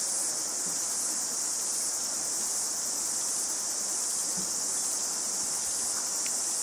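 A steady, high-pitched chorus of insects chirring.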